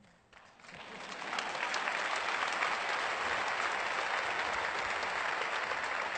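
Auditorium audience applauding: dense clapping that builds over the first second or so, then holds steady.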